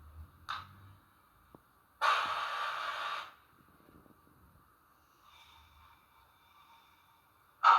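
Roco HO-scale Taurus 1116 model locomotive's DCC sound decoder playing a hiss, like released compressed air, about a second and a half long, through its small speaker. A faint high tone follows, and a sharp loud sound comes right at the end.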